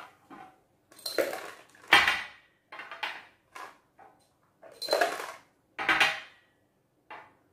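Small glass jars and a plastic cup being handled on a tabletop: a series of clinks and knocks, about one a second, as they are set down and knock together.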